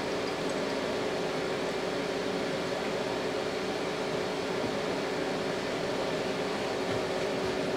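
Oxyhydrogen (HHO) generator running: a steady whirring hum with a constant mid-pitched tone.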